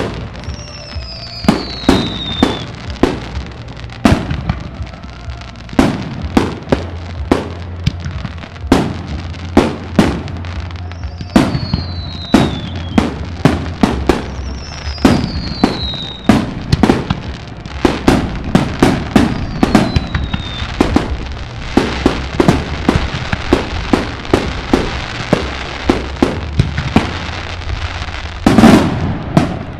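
Fireworks display: aerial shells bursting in quick succession, dozens of sharp bangs, with a few high whistles that fall in pitch. A dense crackle builds in the last third, and the loudest burst comes near the end.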